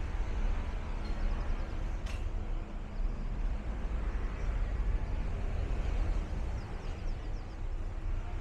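Outdoor street ambience dominated by a steady low rumble, with a faint click about two seconds in.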